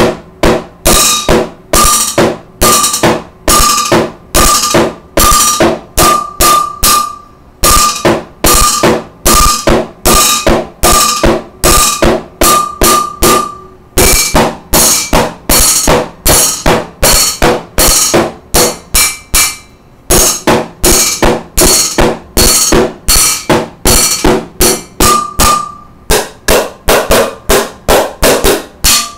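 Wooden drumsticks beating a fast, steady freestyle rhythm on a stainless steel cooking pot and a cardboard shoebox. The pot hits give a ringing metallic note, and the beat pauses briefly a few times.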